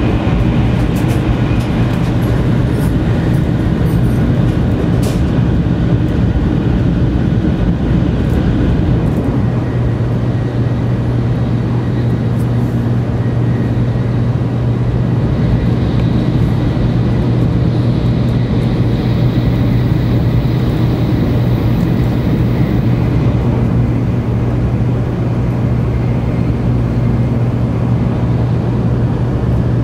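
Interior running noise of a 700 series Tokaido Shinkansen train at speed, a steady rumble with a constant low hum underneath.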